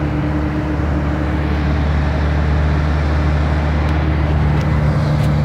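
Steady engine and road noise heard from inside a vehicle's cab while driving at highway speed, a continuous low hum. A few faint ticks come near the end.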